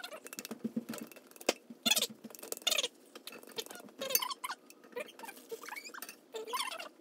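Fresh ginger root scraped across a metal hand grater, in short, irregular scratchy strokes.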